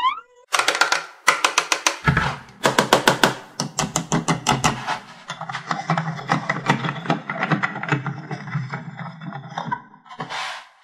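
Rapid plastic clicking and knocking from a toy hand-crank press being handled and its crank turned, with a steady low hum under it from about two seconds in.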